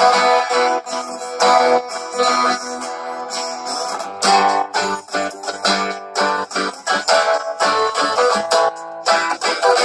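Twelve-string acoustic-electric guitar strumming chords, amplified through a small battery-powered Bluetooth speaker with a 6-inch woofer, its bass turned up.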